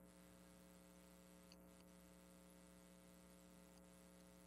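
Near silence with a faint steady electrical hum, and a couple of very faint ticks.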